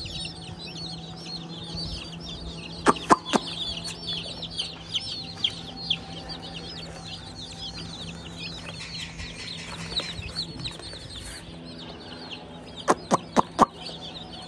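A brood of chicks peeping continuously, many short high-pitched calls overlapping. A few sharp taps come about three seconds in, and a quick run of four near the end.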